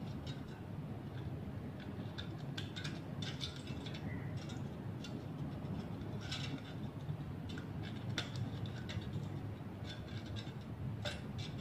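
Irregular light clicks and ticks of thin tin-can metal strips being cut and bent outward by hand, over a steady low hum.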